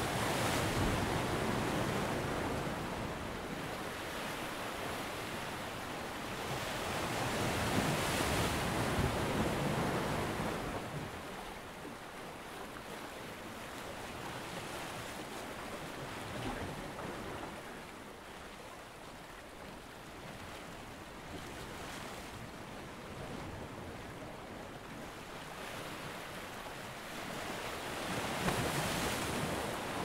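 Ocean waves surging and washing in: a steady rushing of surf that swells loudest about a second in, again around eight to ten seconds in, and once more near the end.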